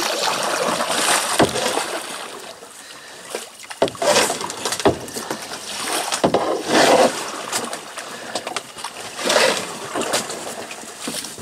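Water splashing and sloshing around a kayak in several surges, every two to three seconds, as the boat is shoved and slid through shallow water.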